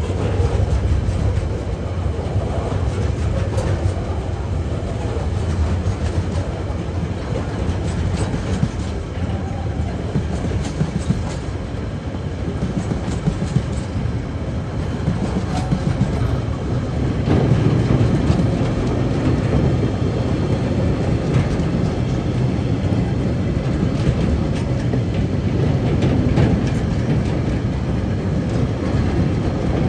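Loaded container wagons and empty log wagons of a freight train rolling past. Their steel wheels make a steady rumble on the rails, with a run of clickety-clack over the rail joints. The sound grows louder a little over halfway through.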